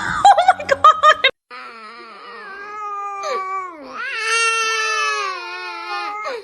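A dog crying in long, drawn-out, wavering whine-howls, getting louder about halfway through.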